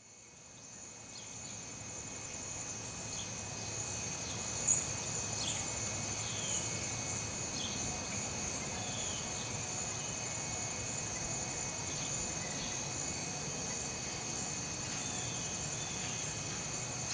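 Insects trilling steadily at several high pitches, with short falling bird chirps now and then and one brief click about five seconds in.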